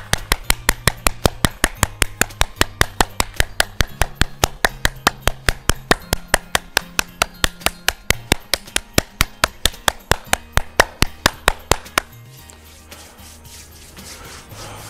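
Hands clapping hard and fast, about four or five sharp claps a second, stopping about twelve seconds in. Background music with a low bass line plays under it.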